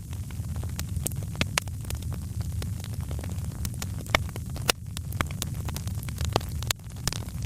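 Wood fire crackling, with irregular sharp pops and snaps over a steady low rumble of the flames.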